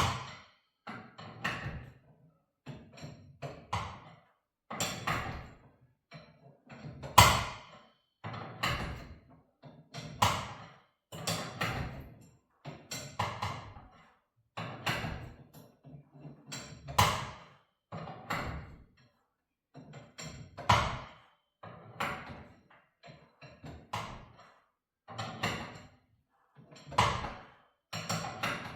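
Steel winding bars knocking and clinking against the winding cone of a garage door torsion spring as it is wound tighter a quarter turn at a time: a string of sharp metallic knocks, about one every second or two.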